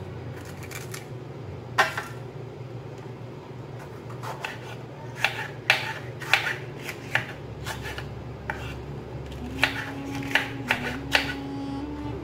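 Kitchen knife cutting a bell pepper on a wooden chopping board: about ten sharp knocks of the blade against the board, coming at uneven intervals.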